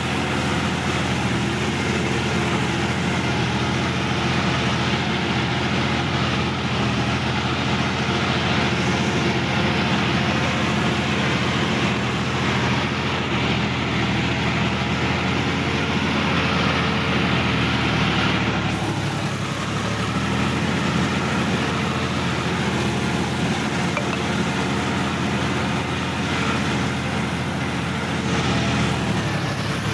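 Sonalika DI-50 RX Supreme tractor's diesel engine running steadily as the tractor is driven across a wet, muddy field, heard from the driver's seat. About two-thirds of the way through the engine speed dips briefly and then picks back up.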